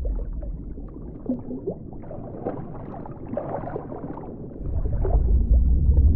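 Water gently gurgling and lapping around a body floating in it, small scattered trickles and splashes. A deep low rumble comes in about four and a half seconds in.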